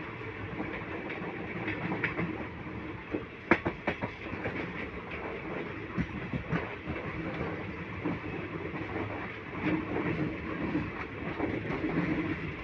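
Passenger train coaches running along the track, heard from an open coach doorway: a steady rumble of wheels on rail. About three and a half seconds in comes a quick cluster of sharp clacks as the wheels cross rail joints, with scattered single clacks after it.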